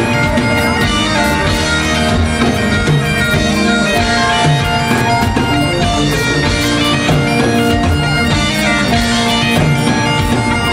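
Live Celtic rock band: bagpipes play the melody over electric guitars and a drum kit keeping a steady beat.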